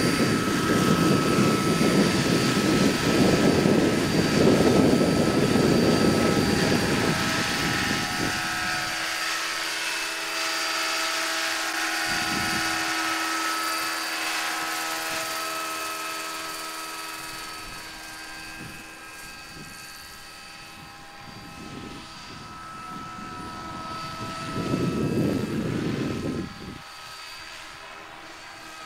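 Large radio-controlled scale model of a Westland Lynx helicopter flying: a loud rush of rotor noise with a steady whine while it is close to the ground, fading to the whine as it climbs away. A brief swell of low rushing noise comes near the end.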